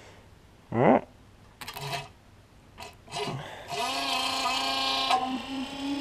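Electric scavenger oil pump switched on about three seconds in: its motor spins up and then runs with a steady whine as it pumps old engine oil through a braided line.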